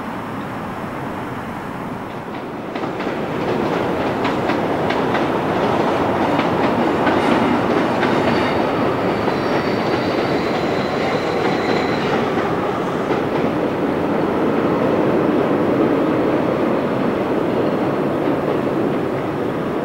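A long passenger train crossing a steel lattice girder railway bridge: a steady rumble with the clickety-clack of wheels over rail joints. It gets louder about three seconds in, and a faint high whine runs for a few seconds midway.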